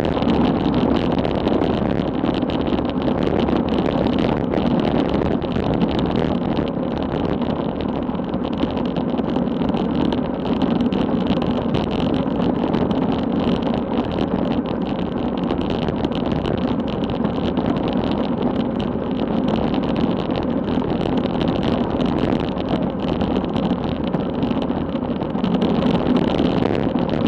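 Steady rush of wind buffeting the microphone on a road bicycle descending at about 30 mph.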